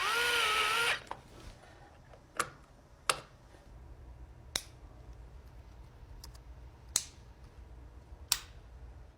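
A power tool whirs for about a second, its pitch rising and then holding. Then come five sharp, separate clicks, a second or two apart, as electrical harness connectors snap into place.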